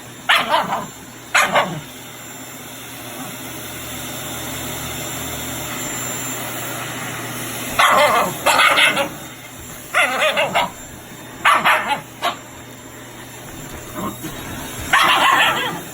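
Shiba Inu barking in short bursts at a running vacuum cleaner: a couple of barks, a pause of several seconds, then a string of repeated barks. The vacuum's steady noise fills the gaps between the barks.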